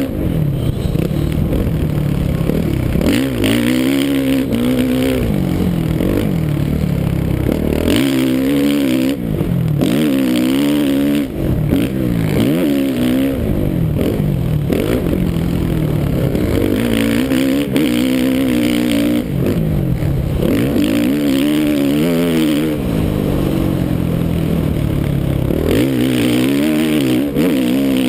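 2013 Suzuki RM-Z450 motocross bike's single-cylinder four-stroke engine revving hard, its pitch climbing and dropping again and again as the rider accelerates, shifts and backs off around the track.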